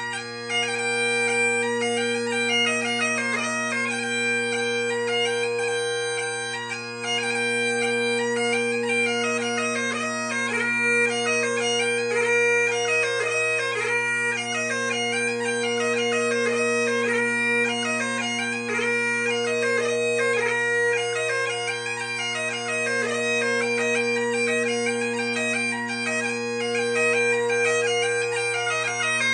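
3D-printed Great Highland bagpipes playing a tune: the chanter's quick melody notes sound over the steady, unbroken hum of the drones.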